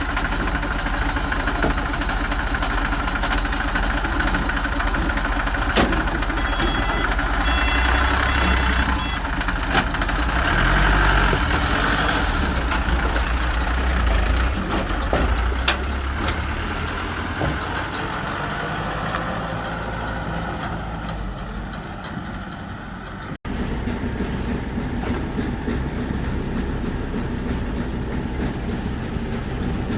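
Heavy vehicle engines running at a busy yard. The rumble is strongest in the first half, then eases. About 23 seconds in it breaks off abruptly and gives way to a steadier engine sound.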